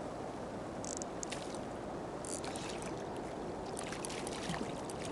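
Hooked wels catfish splashing and rolling at the water's surface beside a boat, a few short splashes over steady water and wind noise.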